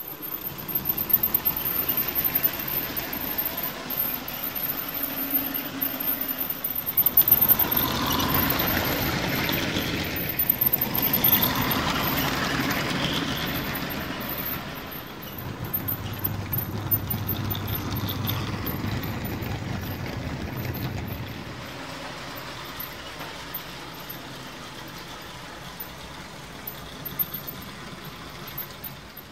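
Motorised brick-built model train running on plastic track, a steady mechanical running noise. It swells louder in the first half, as the train passes close, and fades toward the end.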